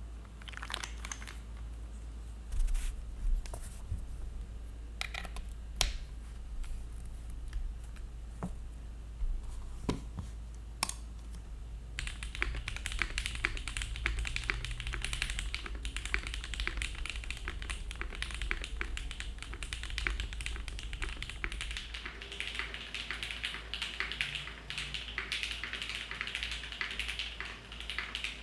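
Mechanical keyboard with lubed Cherry-topped Gateron Box Ink Black V2 linear switches, a carbon fibre plate and GMK keycaps: single key presses spaced a second or so apart at first, then from about twelve seconds in continuous fast typing.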